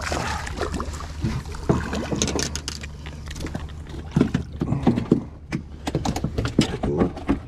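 Irregular clicks, knocks and rattles of a freshly caught speckled trout being handled and unhooked aboard a small boat, over a low steady hum.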